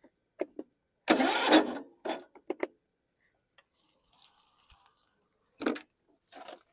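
Starter briefly cranking the lawn tractor's Briggs & Stratton 19.5 hp engine in short bursts without it firing, the loudest about a second in. The owner puts the no-start down to an inoperative compression release.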